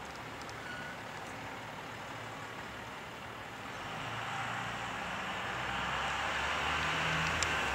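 Steady hiss, then the rumble and rush of an approaching passenger train growing louder from about halfway through.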